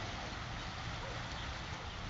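Steady wash of the sea, an even noise with a low rumble underneath.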